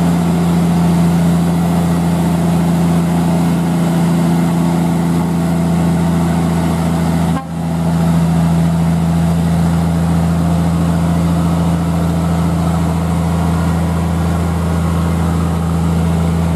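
Scania P380 truck's diesel engine pulling at steady revs in a low gear, hauling a heavy crane-laden lowboy trailer slowly up a steep grade. The sound dips briefly about seven seconds in, then carries on unchanged.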